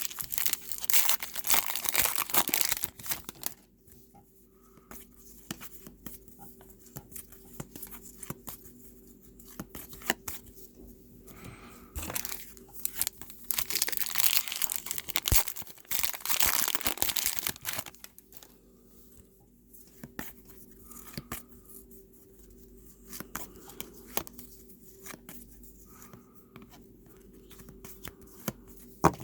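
Trading-card pack wrappers being torn open and crinkled, in two long stretches of tearing, one at the start and one about halfway through. Between them come quieter clicks and rustles of cards being handled.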